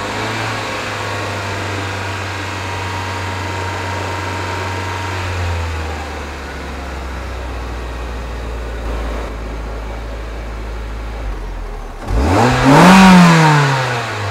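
2007 Hyundai Tiburon GS's 2.0-litre DOHC four-cylinder exhaust, heard at the tailpipe. The engine is held steady at a raised speed and settles back toward idle about six seconds in. Near the end it gives one quick, loud rev that rises sharply and falls straight back.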